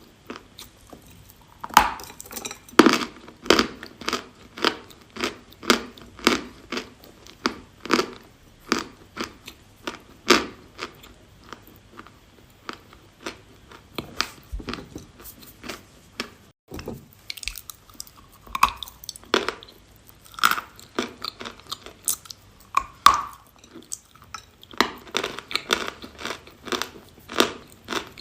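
Chewing and biting lumps of edible chalk, close to the microphone: a run of sharp dry crunches, roughly one or two a second, thinning out briefly about halfway through.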